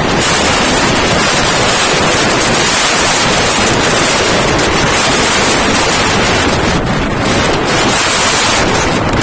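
Strong typhoon wind buffeting the microphone over heavy surf from the storm-driven sea, a loud, steady rush of noise.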